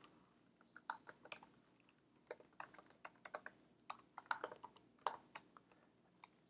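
Typing on a computer keyboard: faint, irregular key clicks in quick runs with short pauses.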